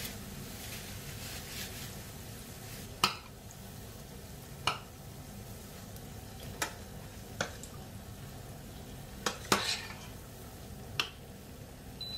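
Chickpea-batter-coated potato balls (vada) deep-frying in oil in a small stainless-steel saucepan, a steady sizzle. A metal spoon and ladle clink against the pan about seven times as the balls are turned.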